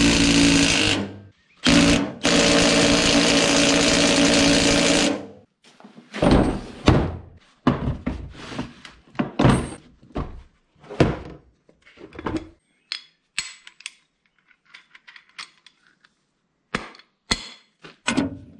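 A power tool runs in two loud bursts, a short one and then one of about three seconds, followed by a string of separate knocks and clatters and a few faint clicks.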